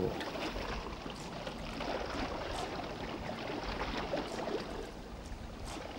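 Harbour ambience: a steady wash of water noise with a low rumble underneath.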